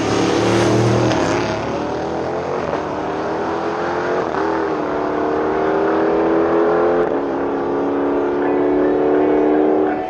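Drag-race car engines at full throttle running away down the strip. The engine pitch climbs steadily, drops briefly twice at the gear shifts, then climbs again.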